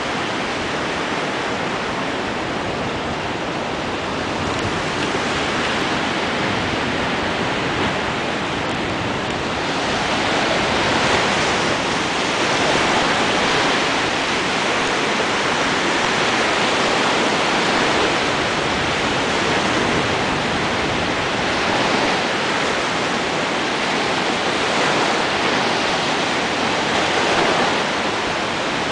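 Small sea waves breaking and washing in over shoreline rocks: a steady rushing surf that swells a little louder about a third of the way in, with surges every few seconds.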